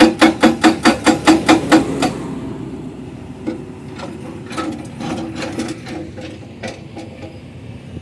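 Hydraulic rock breaker on a Hyundai excavator hammering rock in a fast, even rhythm of about five blows a second, stopping about two seconds in. Afterwards, fainter irregular knocks continue over a low engine rumble.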